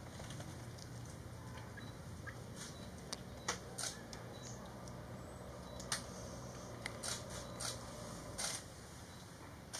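Faint outdoor field ambience: a low steady hum with a handful of short, sharp clicks and rustles scattered through it, bunched in the middle and latter part.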